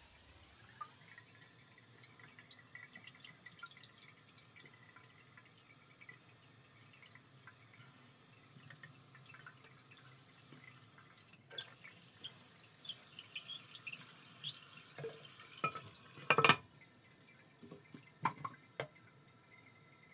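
Kohler one-piece toilet tank refilling through its fill valve after the water supply is turned back on: a steady hiss of water with scattered drips and small ticks. Near the end comes one loud clunk, as the porcelain tank lid is set back in place.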